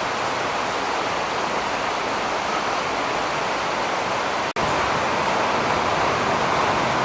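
Steady heavy rain falling, a dense even hiss, which cuts out for an instant about four and a half seconds in.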